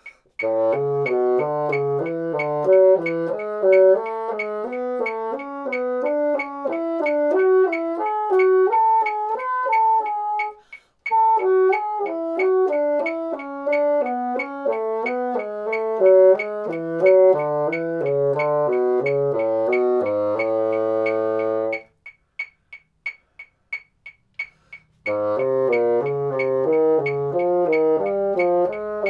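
Moosmann bassoon playing a scale exercise in thirds, quick notes stepping up and down, over a metronome clicking at about 90 beats a minute. The playing stops briefly near the middle, then again after a held low note about two-thirds through, leaving only the metronome clicks for a few seconds before it starts again.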